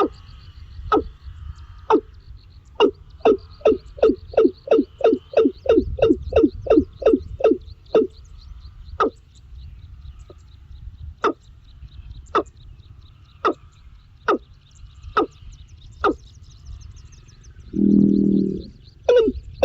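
An animal calling over and over in short, sharp notes, quickening to two or three a second, then slowing to single notes about a second apart. A faint high trill runs underneath, and near the end a lower pitched call lasts about a second.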